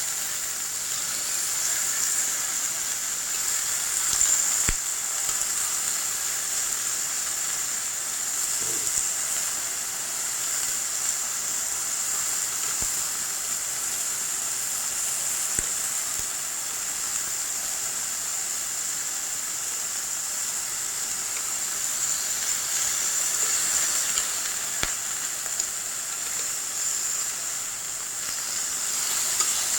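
Japanese A5 wagyu beef searing on a hot iron plate: a steady sizzle, with a few faint clicks.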